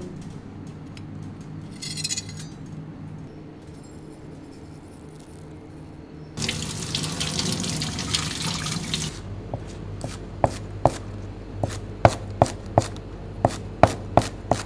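Water runs from a tap for a few seconds and is shut off abruptly, then comes a string of about ten sharp clicks and knocks.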